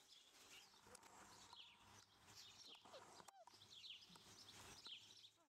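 Faint, short high chirps and squeaks from animals, one lower falling squeak about three seconds in, over a faint low hum; the sound cuts off abruptly just before the end.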